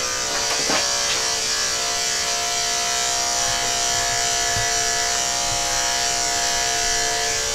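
Andis AG two-speed electric dog clippers running steadily with a snap-on comb, buzzing as they clip a Westie puppy's coat along her side.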